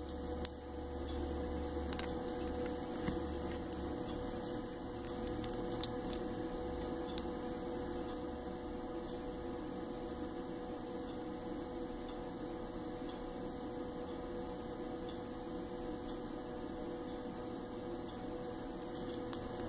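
Steady electrical hum with a thin constant tone, broken only by a few faint light clicks.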